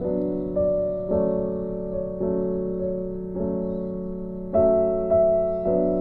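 Background piano music: a new chord is struck every second or so, and each one fades before the next.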